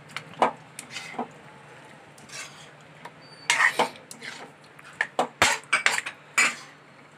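Spatula scraping and clinking against a metal kadai while stirring thick spinach chicken curry, in irregular strokes, busiest in the second half.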